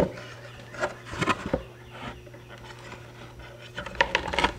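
Plywood panels of a homemade saw jig being handled and fitted: a few sharp wooden knocks near the start and about a second in, rubbing and scraping between, and a cluster of knocks near the end, over a steady low hum.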